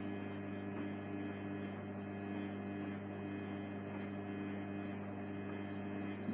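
Samsung WW80J5555FWEU front-loading washing machine running with a steady hum, held in a suds lock from too much washing powder.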